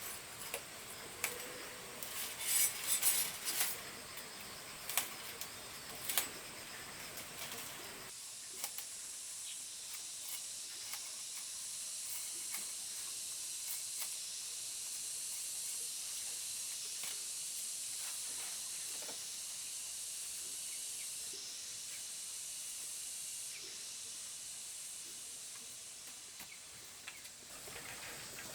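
A few sharp knocks and clicks over the first several seconds, then a steady high-pitched drone of cicadas that starts abruptly and holds until near the end.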